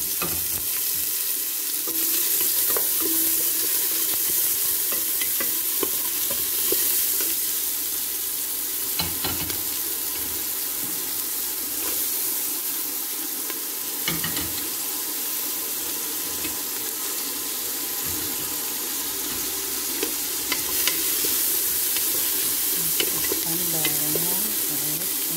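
Chopped red onion and garlic sizzling in oil in an aluminium pressure-cooker pot, stirred with a wooden spoon that scrapes and knocks against the pot now and then.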